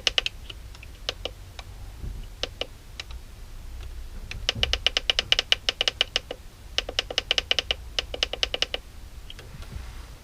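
Rapid clicking of the Yofuly 938BD-II rework station's temperature-setting buttons, pressed over and over to step the soldering iron up to 350 °C. The clicks come in runs of several a second, the longest two lasting about two seconds each in the second half.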